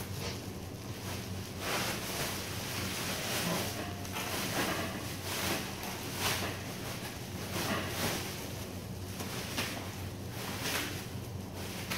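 Rustling of a full woven plastic sack as its neck is cinched and tied shut with cord, in irregular bursts about once a second, over a steady low machine hum.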